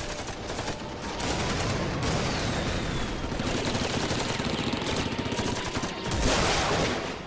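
Sustained heavy gunfire: many shots overlapping in rapid automatic bursts, with a louder surge about six seconds in.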